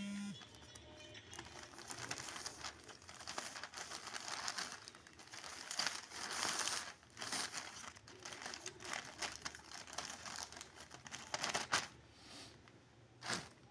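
Plastic courier mailer bag crinkling and rustling as a folded cloth garment is pushed inside and the bag is pressed flat. There are a couple of louder, sharper crackles in the last few seconds.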